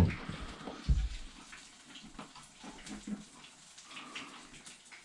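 Two dull thumps in the first second, then the faint, crackling hiss of battered smelt frying in hot oil.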